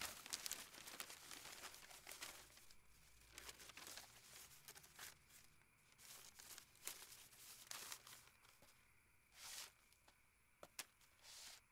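Faint rustling and crinkling of newspaper sheets being handled and spread out on a floor. The rustling is dense at first, then comes in scattered short rustles and light ticks, with a couple of longer rustles near the end.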